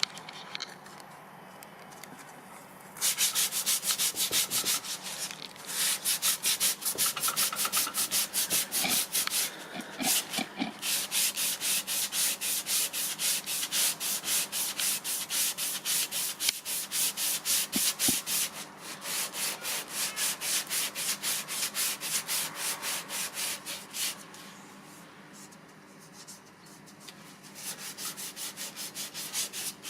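120-grit sandpaper rubbed quickly back and forth over a filled, repaired patch of an MDF door, in long runs of rapid even strokes with a few short pauses. The sanding starts about three seconds in, eases off for a few seconds near the end, then picks up again.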